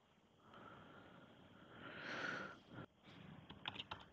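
A faint breath through the nose, swelling and fading over about two seconds, then a few soft computer keyboard key clicks near the end.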